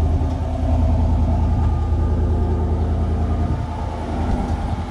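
Chevy Silverado pickup's engine idling steadily, a low even hum.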